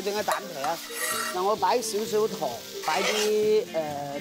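Glutinous rice being stir-fried in a wok: a metal spatula stirring and scraping through the rice over a steady sizzle.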